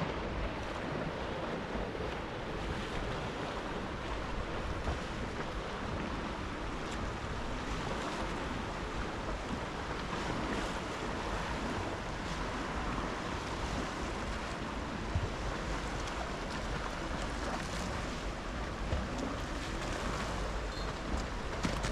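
Choppy sea washing against a concrete waterfront, with wind rumbling on the microphone; steady.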